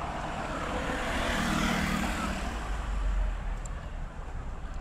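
A motor vehicle passing on the road, its noise swelling to a peak mid-way and then fading, over a steady low rumble.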